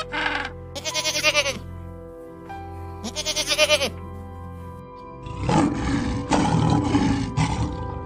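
Two short bleating animal calls, falling in pitch, about one and three seconds in, then a lion roaring harshly for about two seconds, over steady background music.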